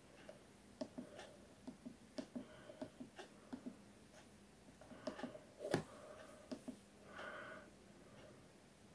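Faint clicks and taps from a Sony Ericsson C510 mobile phone being handled and its keys pressed, with one louder knock just before six seconds in.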